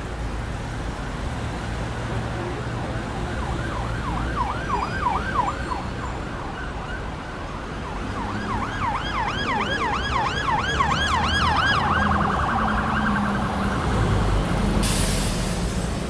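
Emergency-vehicle siren yelping, its pitch sweeping rapidly up and down about four times a second, heard in two stretches over the steady rumble of street traffic. A short burst of hiss comes near the end.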